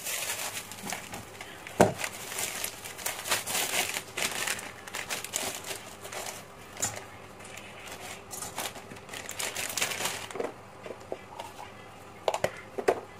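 Water at a rolling boil in a stainless steel pot: a dense bubbling crackle that dies down about ten seconds in as dry spaghetti goes in, followed by a few light clicks.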